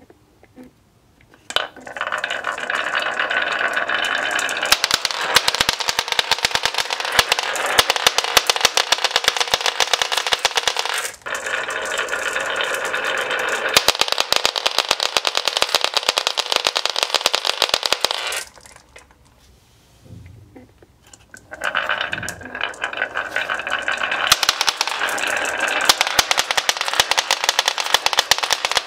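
Dozens of glass marbles rolling down a wavy wooden marble-run track and clattering into a heap between wooden blocks: a dense, rapid rattle of clicks on glass and wood. It starts about a second and a half in, breaks off about two-thirds of the way through, and starts again a few seconds later.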